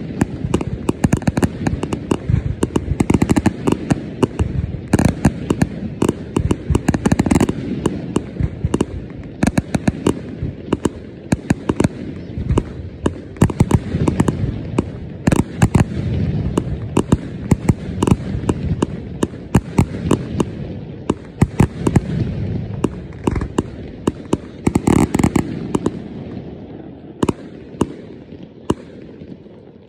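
Aerial fireworks shells bursting in quick succession: many sharp bangs and crackles over a continuous low rumble. The bangs thin out and the sound dies away over the last few seconds as the display ends.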